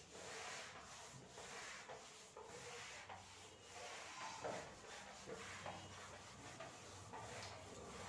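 Whiteboard being wiped clean by hand: a run of faint, uneven rubbing strokes across the board's surface.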